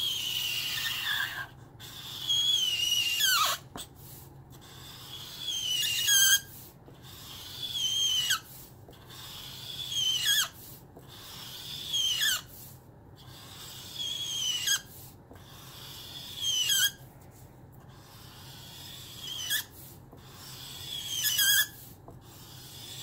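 Nib of a nearly dry Zongii alcohol marker dragged across paper in long strokes, about one every two seconds. Each stroke is a squeaky rub that ends in a squeak sliding down in pitch. The marker is running out of ink.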